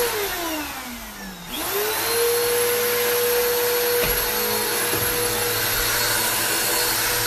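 Vacuum cleaner running. Its motor whine slides down in pitch over the first second and a half, then quickly climbs back to a steady high whine.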